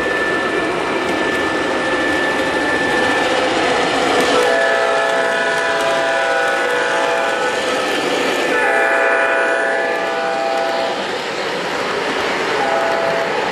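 MTH O-scale ES44DC model diesel locomotive sounding its multi-tone horn: two long blasts and then a short one, over the steady rolling noise of the train running on three-rail track as it passes close by. The long-long-short pattern is the opening of the grade-crossing signal.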